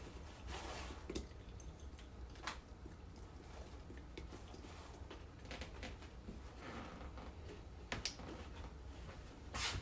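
Quiet kitchen handling while brewing coffee through a sieve: a few small knocks and clicks of cups and utensils, with faint wet, dripping sounds.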